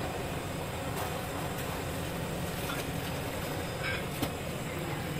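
Steady rushing noise of beef cooking in a pot on a stove, with a few faint clicks.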